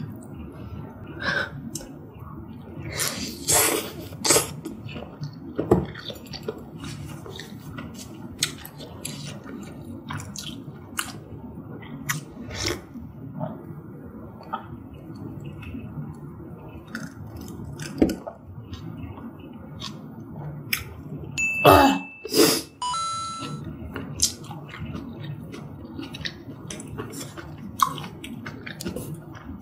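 Close-miked eating sounds: chewing and slurping spicy malatang soup and noodles, with many short clicks and smacks of mouth and utensils. A sip from an iced drink comes partway through.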